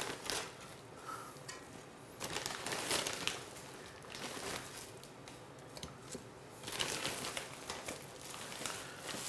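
Partly frozen raw chicken pieces being handled and laid into a stainless-steel pan, giving rustling, handling noises in two busier spells, about two seconds in and again about seven seconds in.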